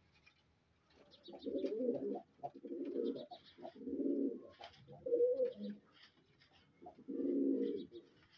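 Domestic fancy pigeons cooing: about five low coos, one after another with short gaps, starting about a second in.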